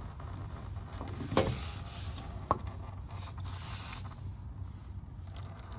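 Two sharp knocks of tools or parts being handled under a vehicle during an oil change, about a second apart, with a brief hiss between them over a steady low hum.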